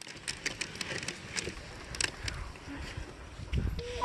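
Dog sled moving over packed snow: the runners hiss and crunch, with irregular sharp clicks and creaks from the sled, and a low rumble shortly before the end.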